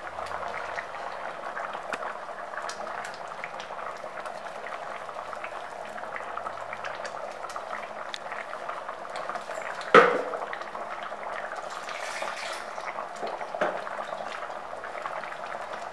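Thick tamarind curry bubbling steadily at a simmer in a pan, with a single sharp knock about ten seconds in.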